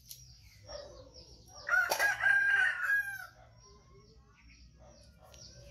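A rooster crows once, loud and held for about a second and a half, starting a little under two seconds in, over faint high chirping.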